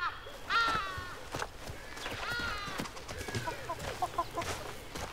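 A hen calling: a drawn-out call about half a second in and another about two seconds in, then a quick run of soft clucks.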